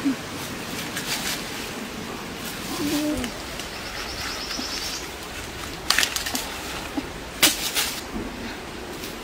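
Short, low dove coos twice over a steady outdoor hiss, with a faint high bird trill between them. Sharp rustling cracks of leaves and twigs come about six seconds in and again around seven and a half seconds, the loudest sounds here, as fruit is pulled from the branches.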